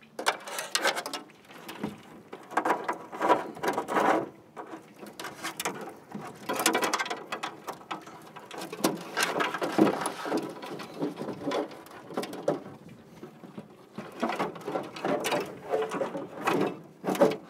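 Bundles of insulated electrical wires being pulled by hand through a plastic power pedestal, scraping and rustling against the housing in irregular bouts with short pauses between them.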